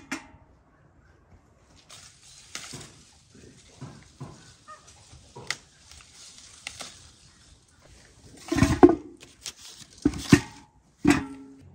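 Quince tree leaves rustling and stems snapping as the fruit is picked by hand. Then quinces are dropped into a metal bucket, with a few loud ringing thumps in the last few seconds.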